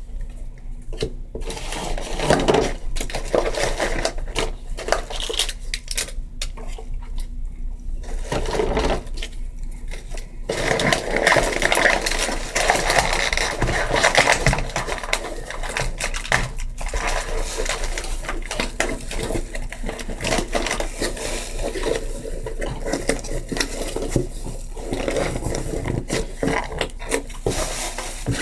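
Close-up handling of small nail-kit items: a busy run of clicks, taps and scraping, with a rougher, hissier scraping stretch a third of the way in.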